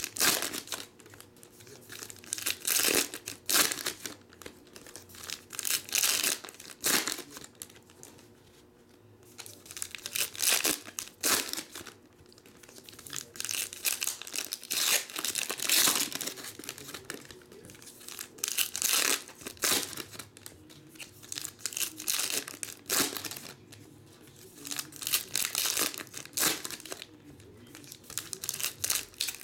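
Foil trading-card pack wrappers being torn open and crinkled by hand, in repeated bursts every second or two with short quieter gaps between them.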